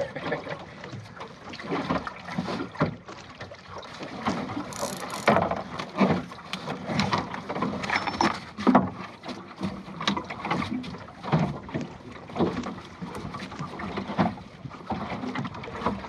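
Water slapping and splashing irregularly against the plywood hull of a Goat Island sailing skiff under way, with a few louder slaps.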